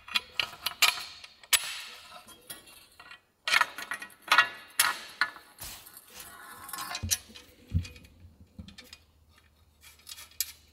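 Metal hardware being handled and fastened: nuts, bolts and metal cross-brace tubes of a tower blind clinking and knocking together in a run of sharp, irregular clicks as the braces are bolted up.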